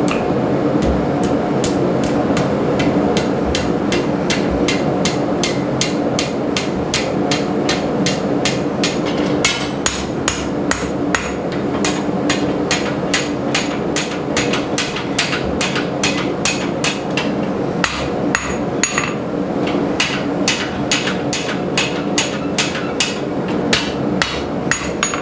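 Hand hammer striking red-hot rebar on a steel anvil in quick, even blows, about two to three a second, forging the tapered end into a tight scroll.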